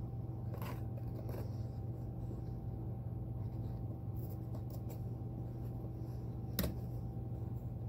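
Old thread being picked and snipped out of the moc-toe seam of a leather Red Wing boot: a few faint snips and scratches, the sharpest about six and a half seconds in, over a steady low hum.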